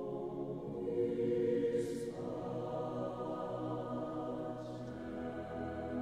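Background music: a slow ambient piece of held, choir-like chords that shift about two seconds in, with soft swelling whooshes twice.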